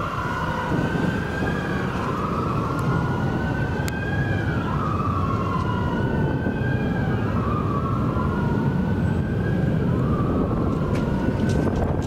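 Two fire apparatus sirens wailing, their pitches sweeping up and down out of step so they keep crossing each other, over a steady low rumble.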